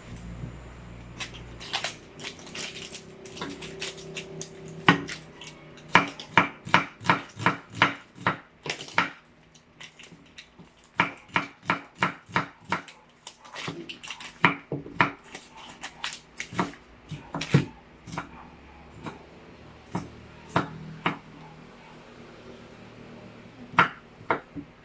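Kitchen knife slicing hotdogs on a chopping board: sharp knocks in runs of several strokes, about three a second, with short pauses between runs.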